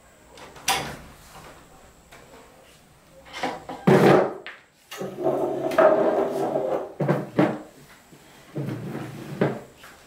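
A series of knocks and clatters, the loudest about four seconds in, with a longer noisy stretch lasting a couple of seconds after it.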